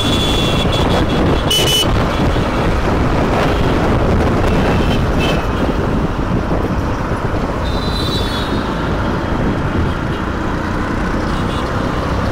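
Steady engine and road noise of dense city traffic heard from a Honda X-Blade 160 motorcycle on the move, with short vehicle horn toots: one at the very start lasting over a second, then brief ones about a second and a half in, about five seconds in and about eight seconds in.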